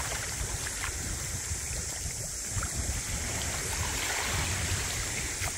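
Small waves lapping in the shallows at the sand's edge, a steady wash with a few faint splashy ticks, and wind rumbling on the microphone.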